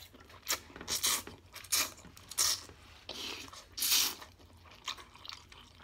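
Two people slurping and chewing spicy instant noodles: a quick run of short, hissy slurps, about eight in a few seconds, with chewing between them.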